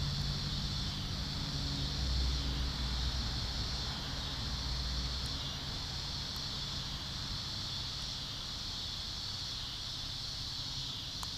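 Steady chorus of insects, a continuous high chirring, over an even background hiss.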